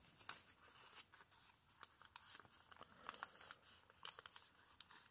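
Faint crinkling and light clicks of double-sided origami paper being handled and creased into a valley fold, a few soft rustles a second.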